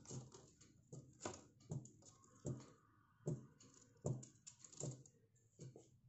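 Quiet, irregular taps and clicks on a hard tabletop, about seven in all, from an Alexandrine parakeet's claws and beak as it steps and pecks about.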